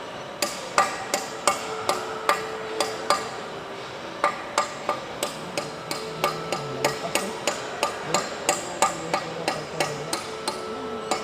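Steady hammer blows on metal, about two to three strikes a second with a short pause partway through, while new turbine blades are fitted to a VTR 304-11 turbocharger rotor shaft.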